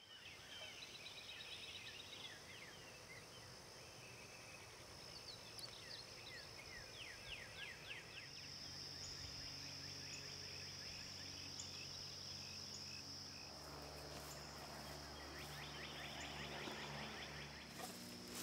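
Quiet rural outdoor ambience: birds singing in short rapid trills over a steady high insect drone. A low steady hum joins about three quarters of the way through, and there are a few sharp clicks at the very end.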